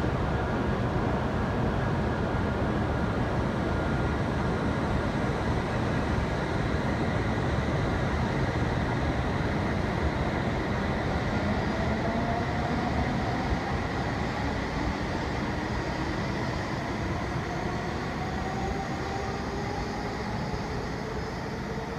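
Hokuriku Shinkansen train pulling out and picking up speed: a steady running rumble, with a motor whine that rises slowly in pitch from about halfway through.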